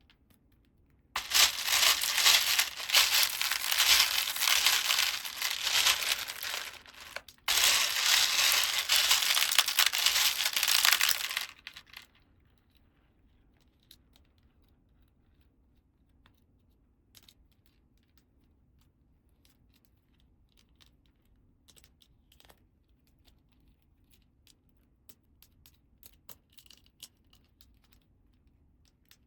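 Toy packaging crinkling and tearing in two loud stretches, a short break between them about seven seconds in, followed by faint, scattered small clicks and taps.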